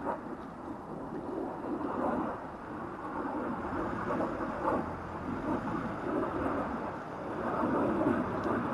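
Diesel engine of a Mercedes-based Rapido motorhome running as it drives slowly across grass, growing louder as it comes near.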